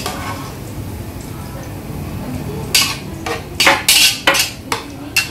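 Metal kitchen tongs clattering against a pot and a ceramic bowl while fried onions are lifted out of the oil: a quick run of sharp clicks and clinks in the second half.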